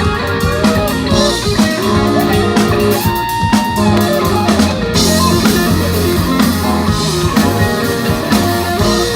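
Live band playing an instrumental passage with guitar and a drum kit keeping a steady beat.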